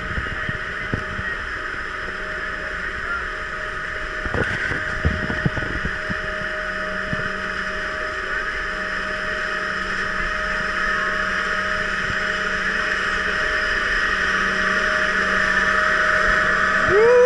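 Vekoma suspended looping roller coaster train being hauled up its chain lift hill: a steady mechanical whine from the lift, with a few clanks in the first seconds, growing slowly louder toward the top.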